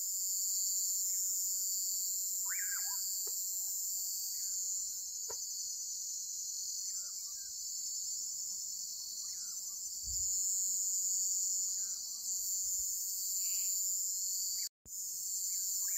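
Night chorus of crickets and other insects: a dense, steady, high-pitched trilling, with a few faint short calls lower in pitch scattered through it. The sound cuts out for a moment near the end.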